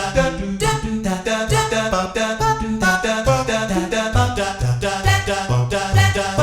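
Roland FP-10 digital piano's built-in jazz scat voice patch played on the keys: sampled sung scat syllables in quick short notes, with chords and melody over a bouncing bass line.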